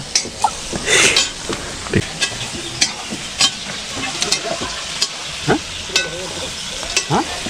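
Local chicken frying in a pan and being stirred: a steady sizzle with a utensil scraping and clicking against the pan every half second or so.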